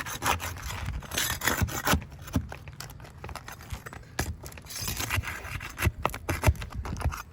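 Roofing nails being worked loose from under 3-tab asphalt shingles: irregular scraping and rubbing against the shingles, broken by many sharp clicks and knocks.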